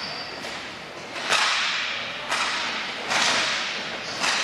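Sharp cracks from roller hockey play, sticks, puck and boards, about four in the span, each echoing through the large indoor rink.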